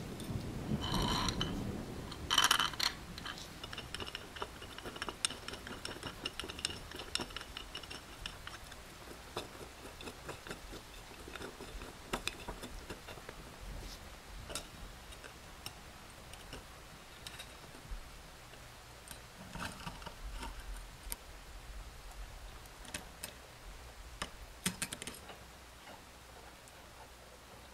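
Small metal clicks, clinks and scrapes of hand tools working on the popcorn maker's heating-element terminals: needle-nose pliers bending the terminal wire and a wrench turning brass nuts on the threaded studs. The clicks come scattered, with the sharpest a couple of seconds in.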